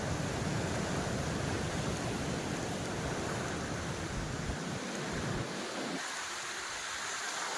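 Wind buffeting the microphone as a fluctuating low rumble over a steady rushing hiss; the rumble dies away about six seconds in, leaving the hiss.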